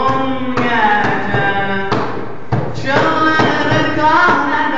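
Male voices singing a Turkish folk song (türkü) in long, held, wavering notes, with hands slapping a wooden tabletop as an uneven beat.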